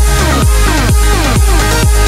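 Instrumental electronic dance music with a deep kick drum on a steady beat, about two beats a second, and falling synth lines over it.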